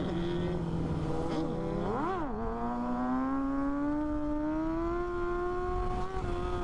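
Motorcycle engine revving: a few quick throttle blips in the first two seconds, the biggest about two seconds in, then a long steady climb in revs as it pulls, easing off slightly near the end. Wind noise runs underneath.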